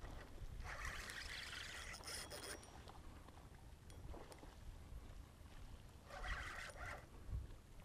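Water splashing in two bursts, the first about a second in and lasting nearly two seconds, the second shorter near the end, over a steady low rumble.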